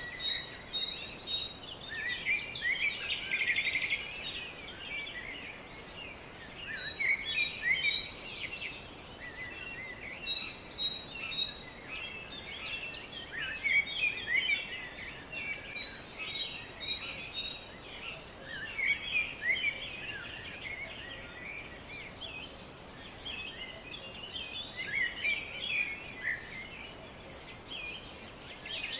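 Many small birds chirping: a dense, continuous chorus of short calls over faint background hiss.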